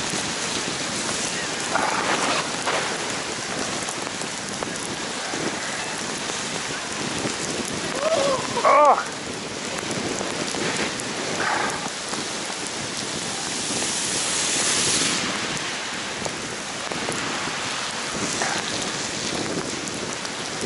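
Heavy rain and spray from wet tarmac as a bicycle rides through a downpour, a steady hiss of rain and tyre spray. A short, loud, wavering pitched sound comes about nine seconds in.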